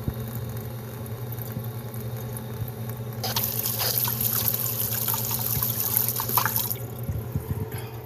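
Spoon stirring instant mashed potato mix into liquid in a glass bowl, with liquid sloshing and scraping. It is louder and hissier from about three seconds in until nearly seven seconds, over a steady low hum.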